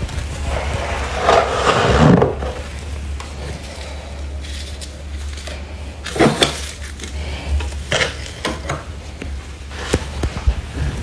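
Gloved hand brushing and scraping the thick frost lining a freezer: crisp crunching and crackling, loudest about two seconds in and again around six seconds, over a steady low hum.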